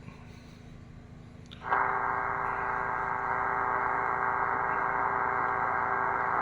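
Tecsun PL-330 shortwave radio stepping through stored stations: faint hiss and hum for about a second and a half, then a steady multi-tone signal comes in suddenly and holds unchanged, confined to the radio's narrow audio band.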